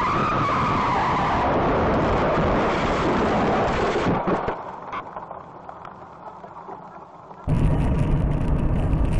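Car and road noise from dash-cam recordings. A loud rush carries a tone that falls in pitch over the first two seconds, then drops away about four seconds in. After a quieter stretch it cuts suddenly to louder, deeper road and engine noise about seven and a half seconds in.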